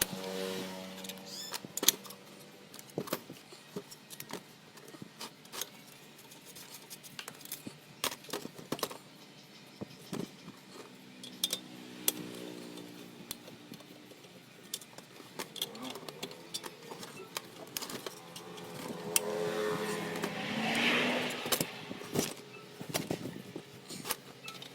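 Scattered sharp clicks and clinks of small tools and metal parts being handled. A motor vehicle engine passes by, swelling and fading about twenty seconds in.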